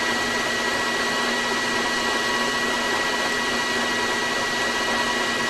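A metal lathe running steadily while a red Scotch-Brite pad is held against the spinning cast-aluminum gas cap, a steady rubbing hiss over the lathe's hum with a thin high whine.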